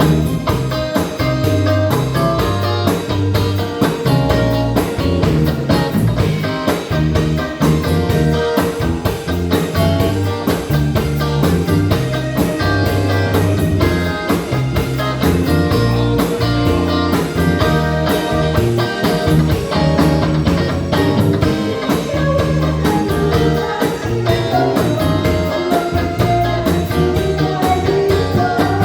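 Pop song music with a steady beat and a repeating bass line, played loud.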